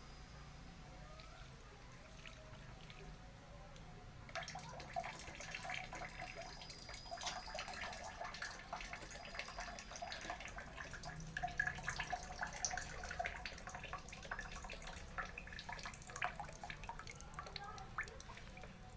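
Water splashing and dripping into the drain tray of an air-conditioner indoor unit, starting about four seconds in and running on irregularly, as the drain is tested for flow.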